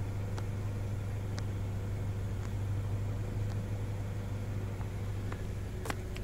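Honda Civic hatchback's engine idling, a steady low hum heard from inside the cabin, with a few faint clicks.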